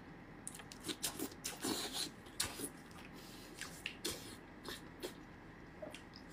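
Close-miked eating sounds of someone chewing soft, fatty pork intestine: scattered wet smacks, squelches and small mouth clicks.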